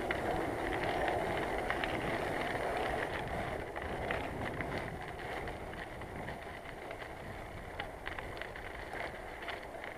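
Bicycle being ridden over a rough path: steady tyre noise with small rattles and clicks from the bike, plus some wind on the microphone. It grows gradually quieter over the second half.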